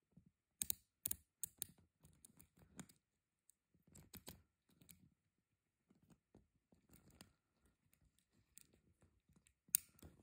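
Sharp metallic clicks from the spring-loaded micro-adjustment of a Porsche Design watch's bracelet buckle being worked by hand. Four crisp clicks come in quick succession about a second in, then softer clicks and bracelet rattles, and one loud click near the end.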